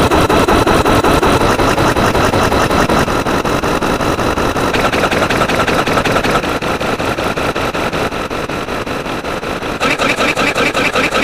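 A loud, dense pile-up of many looped sound effects playing at once, with a rapid, even pulsing and several held tones underneath. The mix shifts about five seconds in and again near the end as new sounds join.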